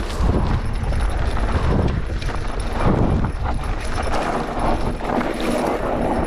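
Mountain bike rolling fast down a dry, loose dirt singletrack: tyres crunching over the dirt and the bike rattling over bumps, with wind rumbling on the microphone.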